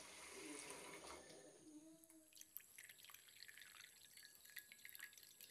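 Near silence with a few faint drips and trickles of water falling into a glass bowl of tamarind.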